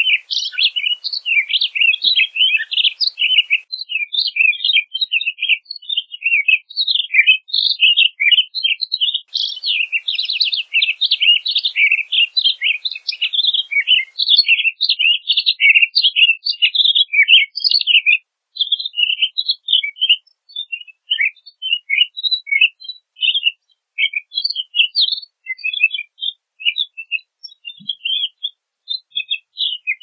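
Pine grosbeak singing: a long, fast run of varied whistled and chirping notes, which thins out after about eighteen seconds into scattered short chirps.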